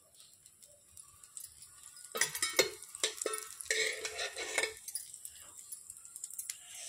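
Steel spoon clinking and scraping against a dosa tawa as oil is spooned around a cooking uthappam, with glass bangles jingling. The clinks come mostly between about two and five seconds in.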